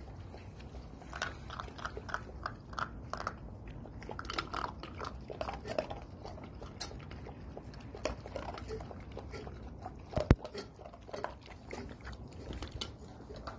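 Tibetan mastiff and puppy crunching dry kibble from a stainless steel bowl: a run of short crunches and clicks, with one sharp, loud click about ten seconds in.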